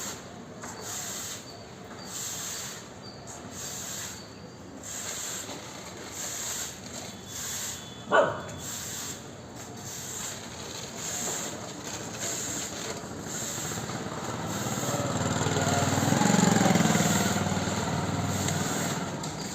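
A street dog barks once, sharp and short, about eight seconds in. Near the end a motor hum swells and fades away, like a vehicle passing.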